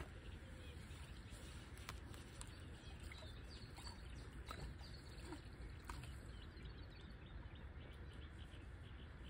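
Faint birds chirping over a low, steady outdoor background rumble.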